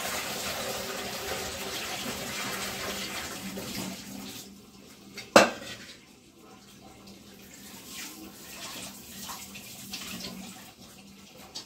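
Kitchen tap water running for about four seconds, then shutting off. About a second later a steel vessel gives one sharp clank, followed by a few faint knocks of dishes.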